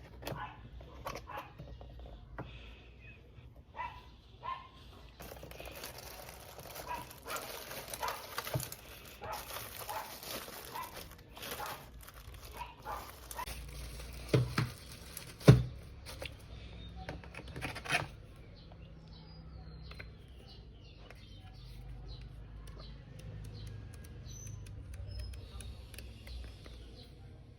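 Packaging being handled while a keyboard is unboxed: crinkling plastic wrap and scattered small clicks, with two sharp knocks about halfway through, the second the loudest. Quieter handling follows, with faint short chirps near the end.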